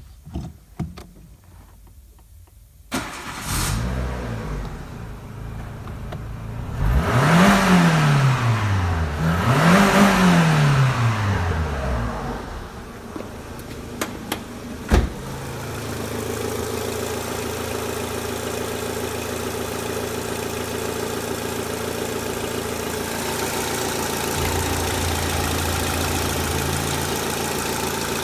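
Renault Megane's 1.6-litre K4M 16-valve four-cylinder petrol engine starting about three seconds in and revved twice, each rev rising and falling back. It then idles steadily. A single sharp knock comes about halfway through.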